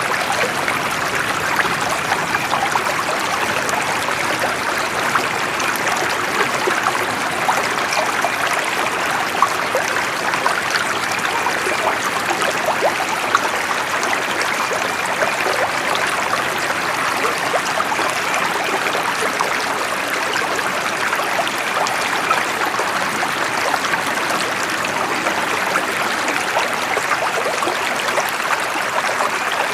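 Running water: a steady, even flow with many small trickles and splashes in it.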